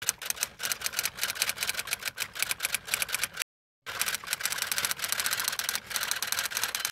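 Typewriter keys clacking in a rapid run of keystrokes, with a short pause about three and a half seconds in.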